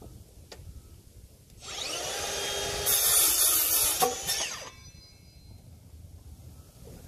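Metabo cordless circular saw spinning up, cutting through a wooden board for about a second with a louder rasp, then winding down.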